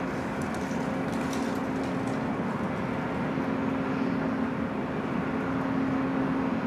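A steady machine hum with one low, even tone, like a fan or heater motor running, with a few faint light clicks over it.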